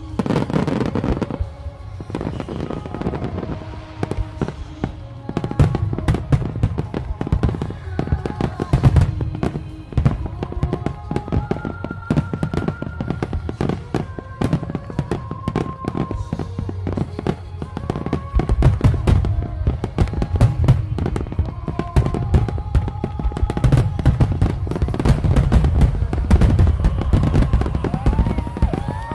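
Large fireworks display: a dense, continuous stream of bangs and crackling from aerial shells bursting and ground fountains firing. A heavier low booming barrage comes in about two-thirds of the way through.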